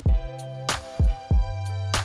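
Background music with a steady drum beat over held bass notes.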